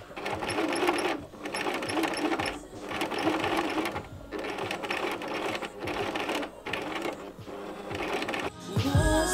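Electric sewing machine stitching in a series of short runs of about a second each, stopping and starting again and again. Music comes in near the end.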